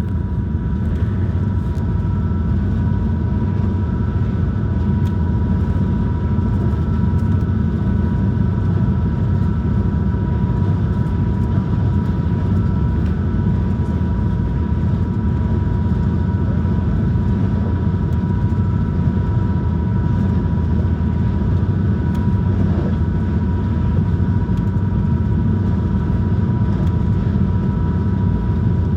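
High-speed passenger ferry's engines running steadily at cruising speed, heard inside the passenger cabin: a constant low rumble with a steady high whine over it.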